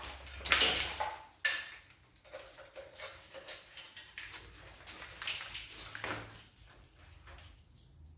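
Hand-work on a stripped engine: metal parts and tools scraping and clunking as pieces are worked loose. There is a rough scrape about half a second in, then a sharp knock, then lighter scraping and rustling.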